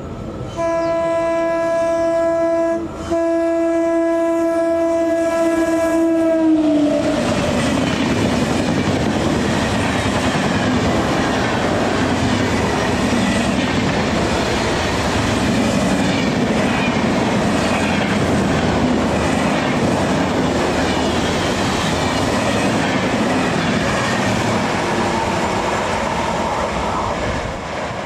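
An electric locomotive's horn sounds in two long blasts as the train approaches, its pitch dropping as the locomotive passes about seven seconds in. Then comes the loud rush and clickety-clack of the passenger coaches running through at speed, easing off near the end as the last coach recedes.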